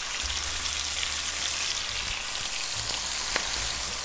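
Wedges of pointed cabbage sizzling steadily as they fry in rendered bacon fat in a frying pan, with one short click about three seconds in.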